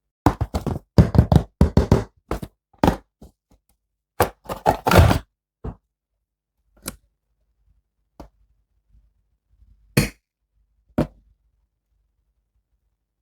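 Hands handling toy packaging and plastic action figures: a quick run of knocks, taps and clicks for about five seconds, then a few separate knocks a second or more apart.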